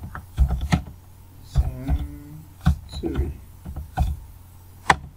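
Computer keyboard keys struck one at a time at an uneven, slow pace, each a sharp click with a dull thump, as a few words are typed.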